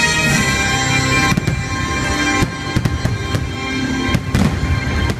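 Aerial fireworks bursting: a few sharp bangs, the closest together a little past four seconds in, over loud show music with sustained notes.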